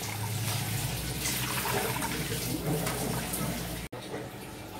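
Water poured from a steel mug into a pot of tomato masala, a steady splashing rush as the cooking water for the rice goes in. A brief break about four seconds in, then quieter.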